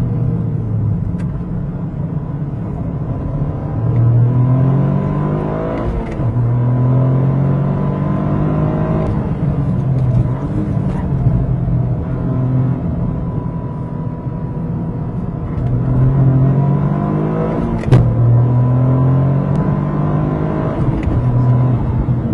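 Toyota GR Corolla's turbocharged three-cylinder engine running under acceleration, its pitch climbing and dropping back several times. About three-quarters of the way through comes a single sharp, loud bang, a jolt from around the front floor that the owner does not take for a breakage and blames on the engine and drivetrain mounts.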